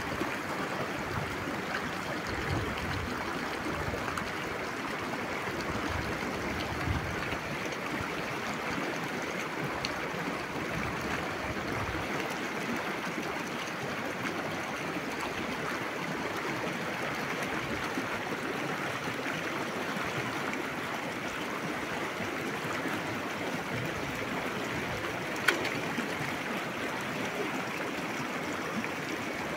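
River water running steadily, an even rushing noise with no change, with a few brief sharp clicks on top, the loudest one near the end.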